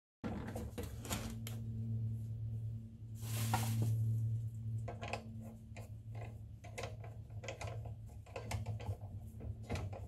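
Drill press chuck being worked with a chuck key while swapping bits: a run of small metallic clicks and rattles, with a louder rasp about three seconds in, over a steady low hum.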